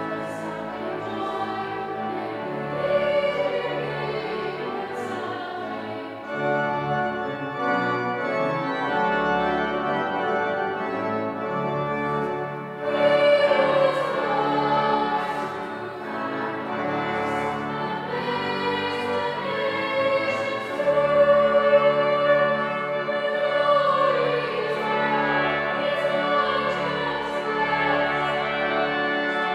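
Children's choir singing a carol in slow, sustained phrases, over low held organ notes.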